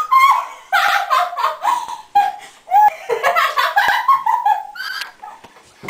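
High-pitched giggling and laughter in quick, breathy runs, with squealing voices mixed in.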